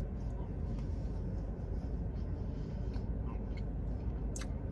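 Steady low hum inside a car, with a few faint clicks and light scrapes from eating, the clearest just before the end.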